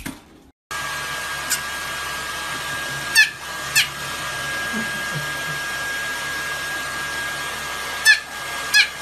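A hair dryer blowing steadily with a high whine, drying a fluffy white puppy's fur. Short high squeaks cut through it, once early and then in two pairs, about three seconds in and near the end.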